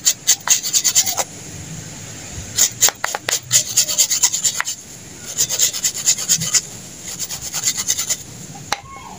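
Spark plug being scrubbed with a wire brush: rounds of quick scratching strokes, about four bursts with short pauses between.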